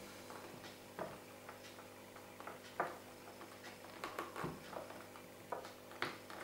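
Hand saddle-stitching leather: faint, irregular small ticks and taps as a needle and brown waxed thread are worked through the punched holes and the leather is handled.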